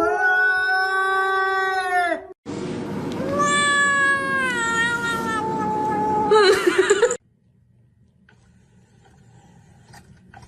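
A cat yowling: two long drawn-out caterwauls. The second slides slowly down in pitch and breaks into a wavering warble before cutting off abruptly about seven seconds in.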